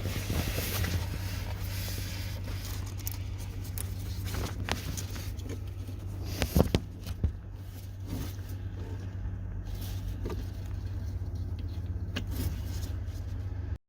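Steady low hum of the RAM ProMaster van's engine idling, with a few sharp clicks and knocks over it. The loudest is a pair of clicks about six and a half seconds in. The sound cuts off abruptly at the end.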